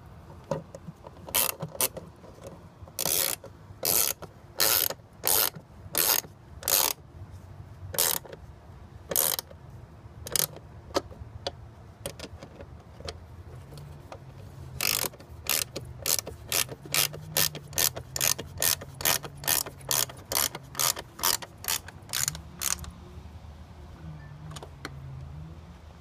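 Half-inch ratcheting box-end wrench clicking as it is worked back and forth to tighten a mounting nut. The clicks come in slow, spaced strokes at first, then a quicker, even run of about two to three a second from around 15 s that stops a few seconds before the end.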